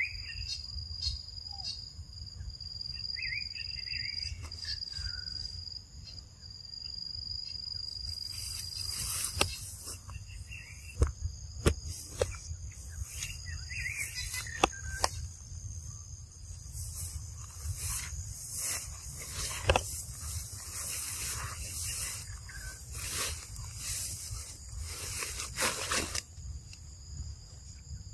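Insects calling: a steady high-pitched trill for the first several seconds, then from about a third of the way in a louder high buzzing that stops shortly before the end, with a few short bird chirps and scattered sharp clicks and rustles throughout.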